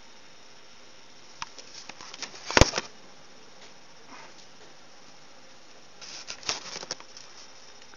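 A run of small clicks and taps building to a single louder knock about two and a half seconds in, then another run of quick clicks around six to seven seconds in.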